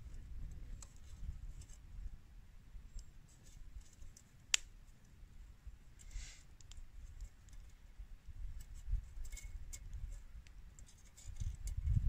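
Campfire crackling, with one sharp pop about four and a half seconds in, along with faint scattered clicks of small objects being handled, over a low rumble.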